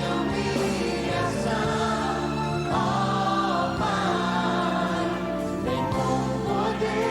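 Gospel worship song: voices singing with choir-like backing over sustained instrumental accompaniment.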